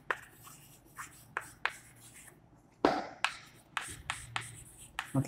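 Chalk writing on a blackboard: a run of short taps and scratches as a word is written out, with a louder cluster of strokes about three seconds in.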